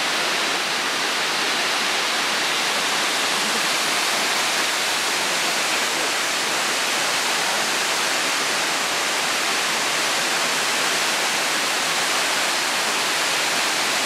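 Ōko Falls, a tall waterfall, pouring down a rock face in a steady, unbroken rush of water.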